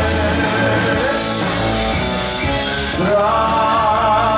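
Live folk-rock band playing: electric guitar and keyboards with a man's singing voice, in the gap between a verse and the refrain.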